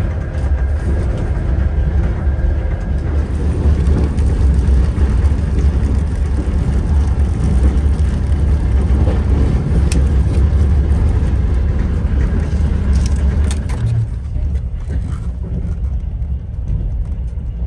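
Steady low rumble and clatter of a moving passenger train, heard from inside the carriage, with the hiss of hot water running from the carriage's boiling-water dispenser into a noodle cup; the hiss drops away about fourteen seconds in.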